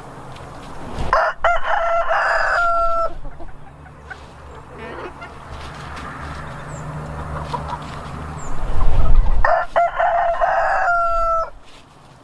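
A rooster crowing twice: two full cock-a-doodle-doo calls about eight seconds apart, each ending in a long held note. A low rumble rises between the crows and peaks just before the second one.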